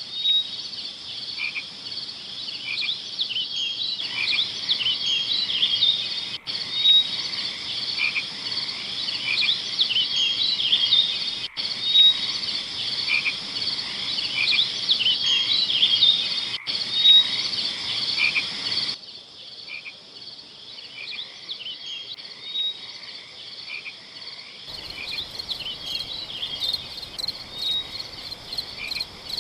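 A chorus of frogs calling, many short high-pitched calls overlapping continuously. The background drops and changes abruptly about two-thirds of the way through.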